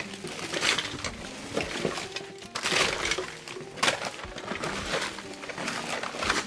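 Shovel scraping and scooping dry dirt and debris, one stroke about every second, with faint background music underneath.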